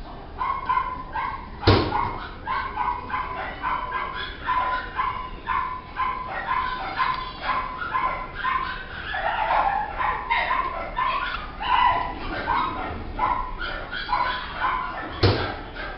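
A dog barking and yipping in short, repeated calls, one or two a second, with two sharp knocks, one early and one near the end.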